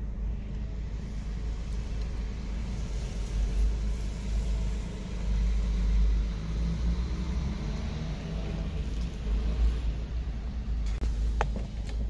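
A coach bus turning and driving slowly past close alongside, its engine a low rumble that swells as the bus goes by, heard from inside a car.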